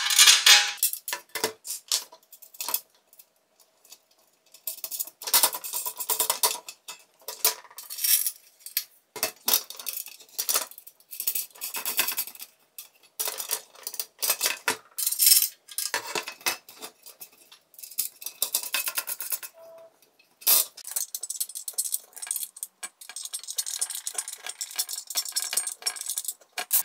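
Small metal screws, washers and nuts clinking and scraping against the sheet-metal plate of a jigsaw table as the screws are fitted by hand, in irregular runs of clicks and rattles with short pauses.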